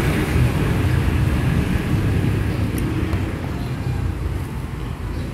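A low, steady mechanical rumble that slowly fades, with a couple of faint clicks about three seconds in.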